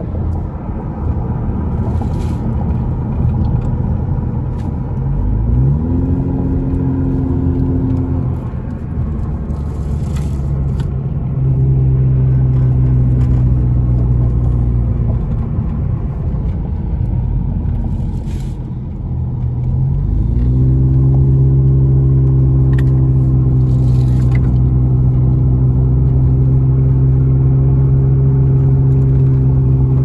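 Car engine and tyre rumble heard from inside the cabin while driving. The engine note rises twice, about five and twenty seconds in, and then holds steady and louder.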